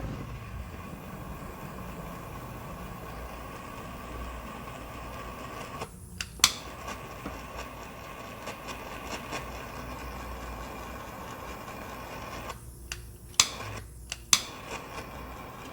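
Heat gun blowing steadily while shrinking the sealing sleeves of marine butt-splice connectors, with a faint whine. A few sharp clicks with brief breaks in the sound come about six seconds in and twice near the end.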